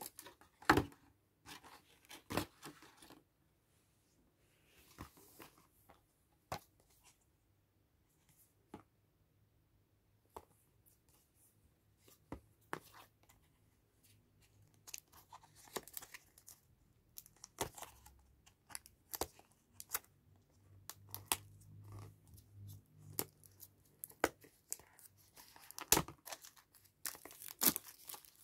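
Packaging being handled: scattered clicks and taps of boxes set down and picked up, then the crinkling and tearing of clear plastic shrink-wrap being pulled off an earphone box, busiest and loudest near the end.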